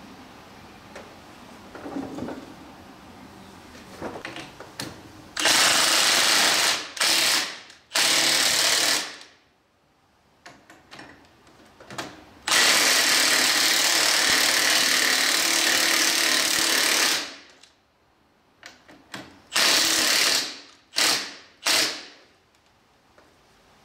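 Cordless impact driver run in bursts, fastening a new steering wheel onto a garden tractor's steering shaft. There are three short runs about five seconds in, one long run of about five seconds in the middle, and a few quick bursts near the end.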